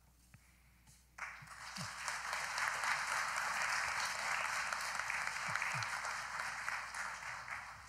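Audience applauding. It starts abruptly about a second in, holds steady and fades away near the end.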